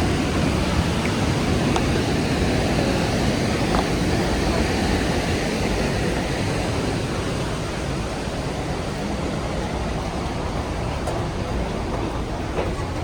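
The Rhine Falls waterfall: a steady, dense rush of heavy water falling and churning, easing slightly in the second half.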